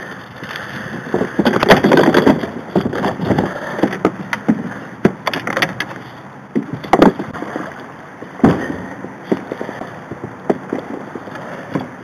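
Handling noise in a plastic kayak: irregular knocks, clicks and rustling as a freshly caught bass is dealt with and laid in the footwell. A dense clatter comes about two seconds in, and a few sharper single knocks follow later.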